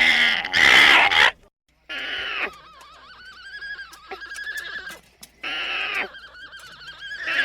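Alpaca calling: a series of short, loud, high-pitched cries, two at the start, one about 2 s in, one about 5.5 s in and one near the end. In the middle, for a couple of seconds, a softer wavering tone lies between the cries.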